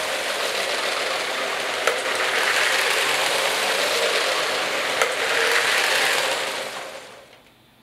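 LEGO 60198 Cargo Train running fast on plastic track: a steady whirring rattle from its battery-powered motor and wheels, growing louder twice as it passes close by. Two sharp clicks come about two seconds apart, and the sound fades away near the end.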